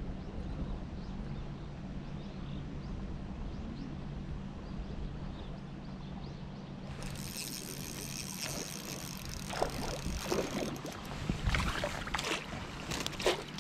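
Steady water noise with a faint low hum beneath it. About seven seconds in the hiss turns brighter, and from about halfway a run of irregular sharp clicks and knocks joins it.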